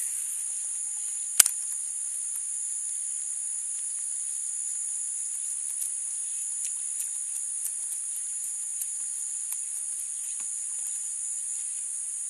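Steady high-pitched insect chorus. A single sharp click about a second and a half in is the loudest sound, with faint scattered ticks after it.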